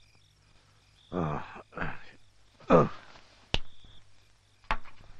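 A man groaning drowsily as he wakes: three short moans in a row, each falling in pitch, the third the loudest. Two sharp clicks follow.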